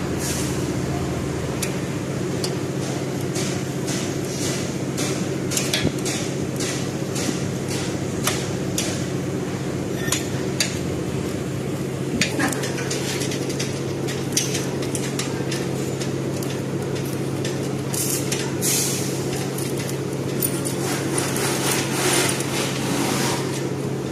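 Repeated metallic clinks and taps, like tools and steel parts knocking together, over a steady low machine hum. The clinks come irregularly and are busiest near the end.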